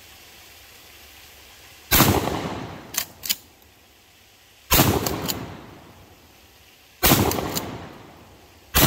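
Stevens 320 12-gauge pump-action shotgun firing four shots of 7.5 birdshot, two to three seconds apart, each blast trailing off, the last one near the end. After each of the first three shots come two sharp clicks as the pump is worked back and forward. The gun cycles and fires every time.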